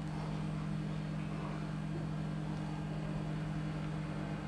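A steady low hum made of a few fixed tones, unchanging throughout.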